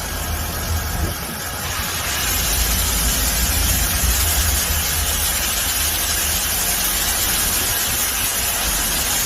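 Car running, a steady low rumble under a broad hiss that grows louder about two seconds in.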